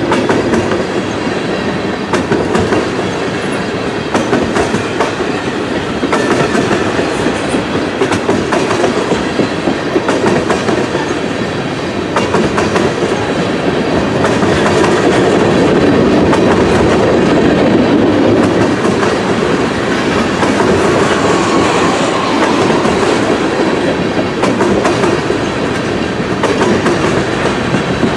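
Freight train cars rolling past, steel wheels clicking over rail joints in a steady clickety-clack above a continuous rumble.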